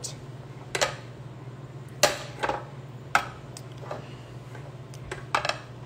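Butter melting in a hot nonstick skillet, giving a few sharp pops and crackles at irregular intervals over a steady low hum.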